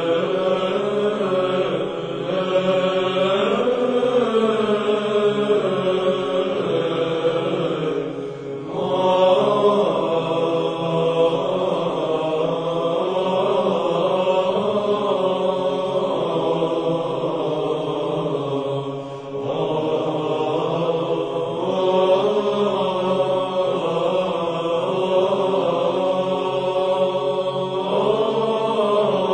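Chanted vocal music, Orthodox church chant, sung in long held phrases with two short breaks between phrases.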